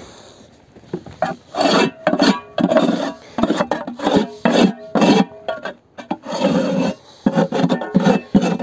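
Metal hand scraper scraping propolis and old wax off the inside walls of a wooden beehive box, in repeated rasping strokes about two a second, with a short pause around six seconds in. This is the mechanical cleaning of the hive before it is disinfected.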